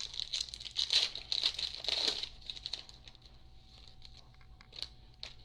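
A baseball card pack's wrapper crinkling and tearing as it is opened. Most of it comes in the first two seconds, followed by quieter handling with a few light clicks.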